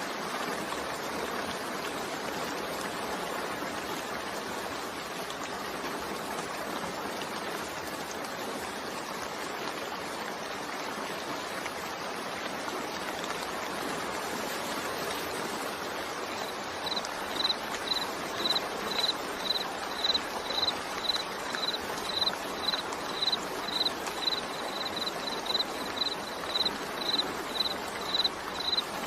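Steady hiss of heavy rain. A bit over halfway through, short high chirps begin, repeating a little under twice a second and standing out above the rain.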